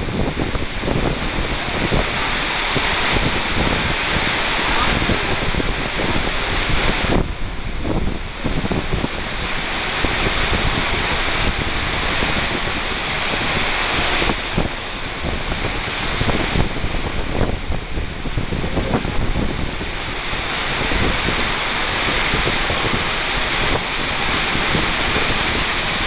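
Misol-Ha waterfall pouring close by, heard from behind its falling curtain of water: a loud, steady rush of water and spray that swells and eases a little, with irregular low buffeting on the microphone.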